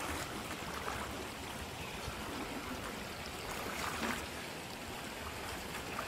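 Shallow stream water splashing and swirling around a person wading and stirring the streambed in waders, with a brief louder splash about four seconds in.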